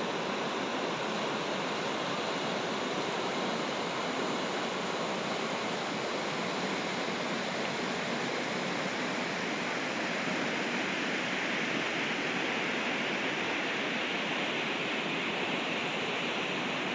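Fast-flowing river water rushing steadily, an even, unbroken wash of sound.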